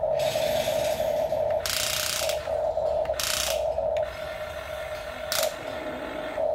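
Huina radio-controlled toy excavator's electric gear motors whirring as the boom and bucket move, the whir pulsing about three times a second, with a few short bursts of scraping noise. It gets quieter about four seconds in.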